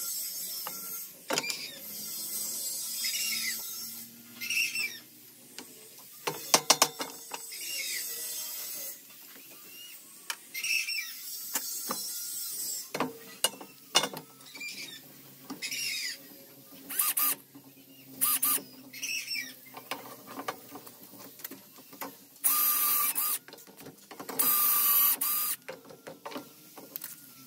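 Scattered knocks and clicks of hands and clamps on a wooden beam, then near the end a power drill runs twice, about a second each, boring into the wood through a dowel jig.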